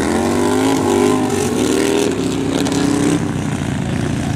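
Engines of two bagger touring motorcycles racing, their exhausts rising in pitch as they accelerate near the start, then running hard at high revs.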